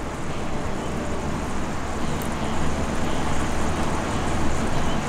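Steady background rumble and hiss, even throughout, with no distinct knocks or clicks standing out.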